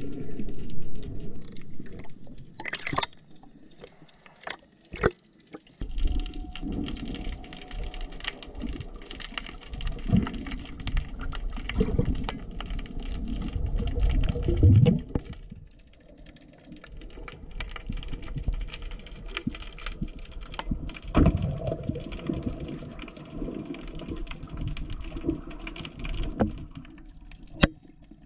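Underwater sound picked up by a diving camera: rushing, bubbling water with scattered sharp clicks and knocks.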